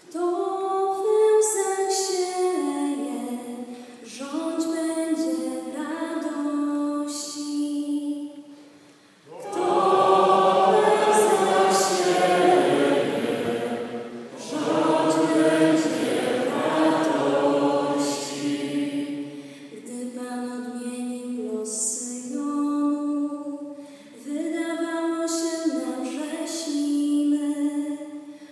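A solo female voice sings a phrase of the responsorial psalm, the congregation sings the response together for about ten seconds, then the solo voice sings again.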